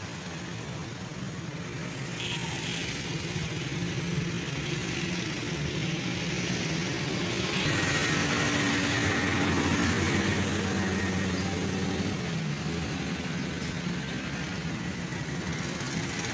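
Hino truck's engine idling steadily, swelling louder for a few seconds around the middle before settling back.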